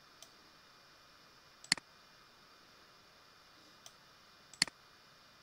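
Computer mouse clicking: two louder clicks about three seconds apart, with a couple of fainter ones, over a faint steady hiss.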